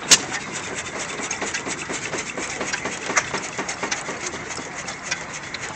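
Crossley horizontal hit-and-miss stationary engine running, its flywheels turning with steady rapid clicking from the valve gear. Two louder sharp hits stand out, one just after the start and another about three seconds later.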